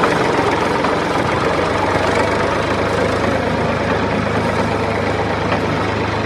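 Steady, unbroken engine-like running sound from a toy vehicle.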